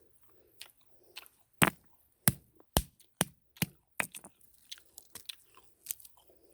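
Licuri palm fruits being snapped and cracked off the bunch by hand: a run of about a dozen sharp, irregular cracks and clicks, the loudest in the first half.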